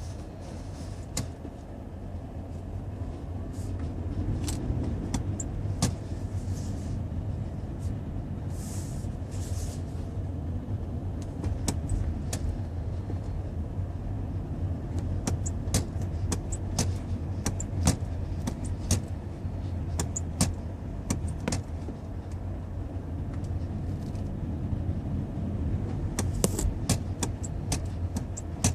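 Inside a 2016 Toyota Prius: a steady low rumble with many sharp, irregular clicks and ticks, the recurring noise that the owner puts down to the brakes.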